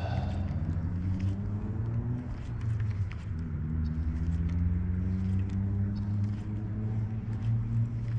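A motor vehicle's engine running over a steady low rumble, climbing in pitch three times as it accelerates.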